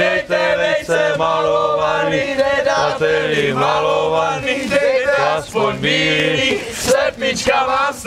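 Group of young men chanting a folk Easter carol together while whipping with willow switches, holding long notes in unison with short breaks between phrases.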